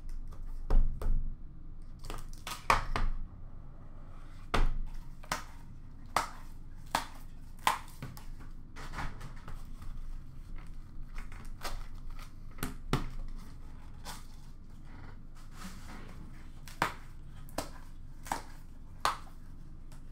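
A box of hockey trading cards being torn open and its contents handled: cardboard and wrapping tearing and crinkling, with irregular sharp clicks and knocks. The loudest of these come in the first five seconds.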